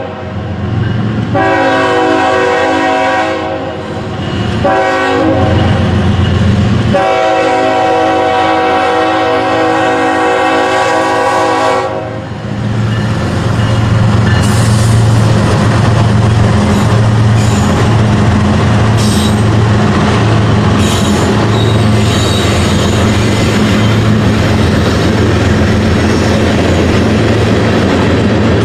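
Diesel freight locomotive horn sounding the grade-crossing signal: two long blasts, a short one and a final long blast of about five seconds. The horn then stops and the BNSF locomotives pass close by with a steady diesel rumble, followed by tank cars clattering over the rails, with brief wheel squeals.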